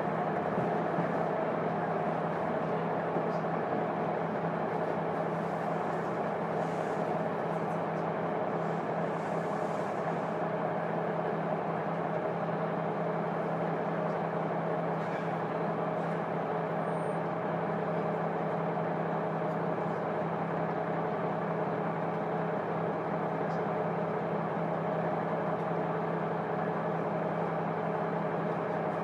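Diesel engine of a KiHa 200 railcar running at a steady, unchanging pitch, heard inside the passenger cabin from the seat directly above the engine with the windows shut.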